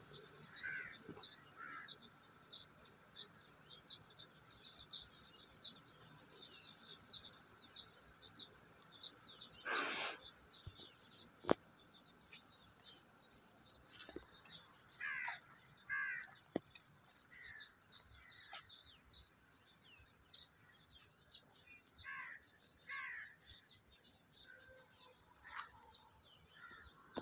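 An insect chirping steadily at a high pitch, about two to three chirps a second, with birds calling now and then in short falling notes. There is a brief rustle about ten seconds in.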